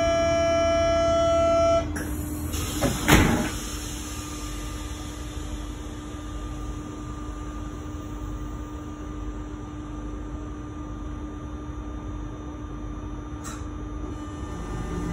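The door-closing warning tone of an RER D train sounds steadily and stops just under two seconds in. About a second later the train's sliding doors shut with one loud thud, and a steady hum of the train carries on after.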